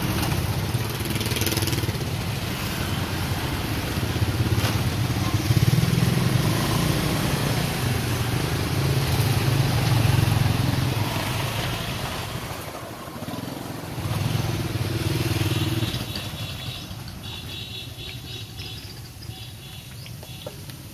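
Small motorbikes and scooters riding past one after another, their engines running and swelling as each goes by. The sound drops away about three-quarters of the way through.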